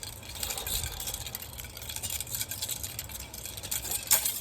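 Three-section staff spun in an arm-over-arm flower, its linking chains jingling and rattling with each rapid turn. A sharp clack about four seconds in as the spin is stopped.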